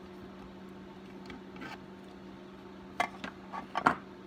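A few light clicks and taps from hand tools being handled during a chainsaw bar stud thread repair. The sharpest come about three seconds in and near the end, over a steady low hum.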